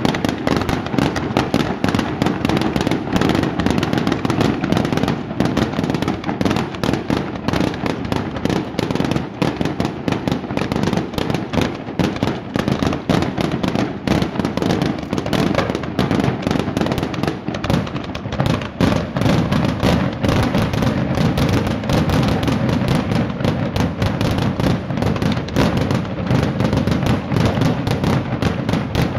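Fireworks display fired from a barge: a dense, unbroken barrage of bangs and crackling.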